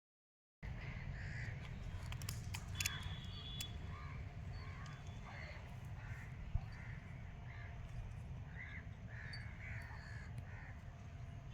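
Birds calling repeatedly in short calls over a steady low rumble.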